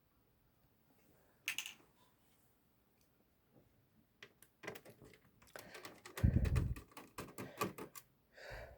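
Scattered clicks and light rattles of a T10 Torx screwdriver working screws out of an original Xbox's motherboard, in a quick run in the second half, with a dull thump about six seconds in.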